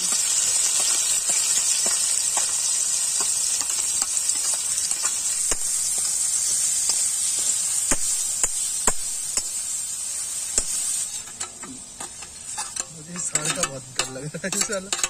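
Chopped onions dropped into hot oil in an iron wok, sizzling loudly from a sudden start, with a metal spatula scraping and clicking against the pan as they are stirred. The sizzle dies down about eleven seconds in.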